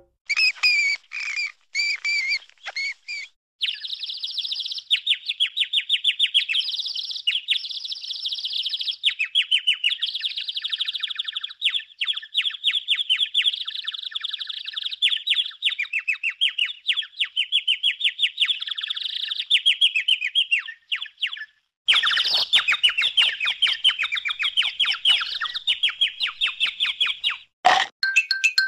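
Rapid, high-pitched bird-like chirping and twittering in several stretches, with short breaks between them.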